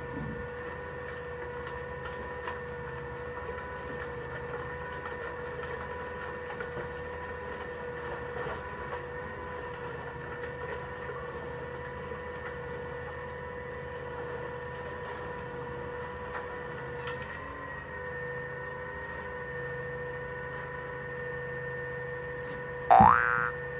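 Recycling truck running with a steady whine over a low hum and scattered faint clicks; near the end, a short, loud, rising whine.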